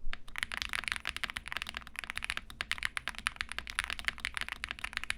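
Fast, continuous typing on a custom mechanical keyboard with lubed, filmed Durock POM linear switches in a polycarbonate plate: a rapid, steady patter of keystrokes.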